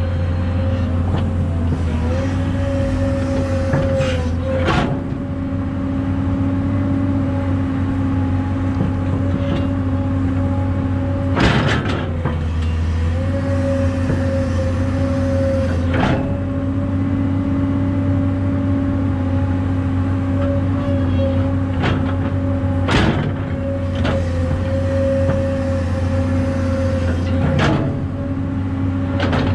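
Kobelco SK250LC excavator's diesel engine running steadily as it digs sand, its note sagging briefly a couple of times as the hydraulics take load. About six sharp knocks and clanks from the bucket and boom come through over it.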